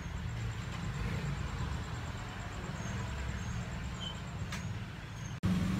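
Steady low background rumble with a faint hiss over it, and a couple of faint clicks near the end. The sound breaks off suddenly about five and a half seconds in.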